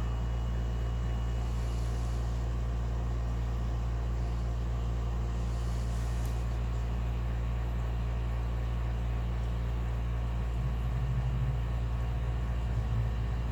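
Steady low hum, a constant machine or electrical drone, with no distinct events over it.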